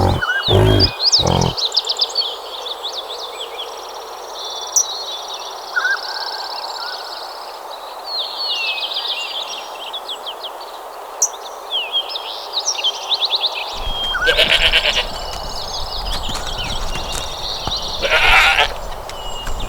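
Birds chirping and trilling in quick high notes, with an animal giving three short low calls right at the start. Near the end, rapid pulsing trills come in over a louder background of rustle and noise.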